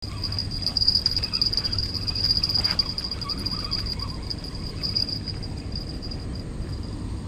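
Insects trilling in a steady, high-pitched chorus, over a low rumble.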